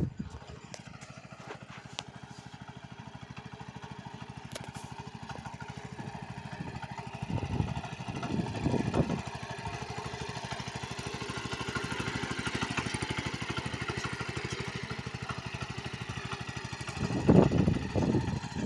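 Walk-behind power tiller's engine running steadily at a working speed while it pulls a cultivator through soil between soybean rows. It swells louder twice, once a little before the middle and once near the end.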